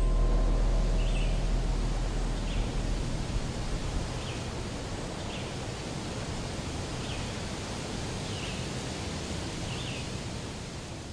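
A bird repeats a short chirp about every second and a half over a steady outdoor hiss. The tail of a music track fades out in the first second.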